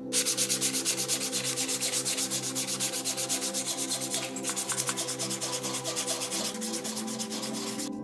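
Sandpaper rubbed rapidly back and forth by hand on a Zippo lighter part, in even strokes of about five a second, with a steady background tune underneath.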